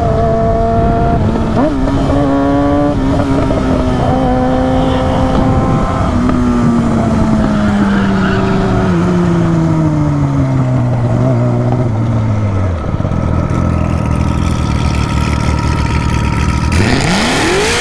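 High-performance vehicle engine running hard, its pitch holding and then falling slowly over several seconds as it eases off. A low rumble follows, then a sharp rising rev near the end.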